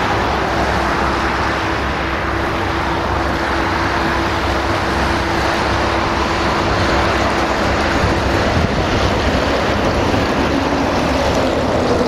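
Mobile truck crane's diesel engine running steadily under a rushing noise, with a steady hum that drops out about eight and a half seconds in.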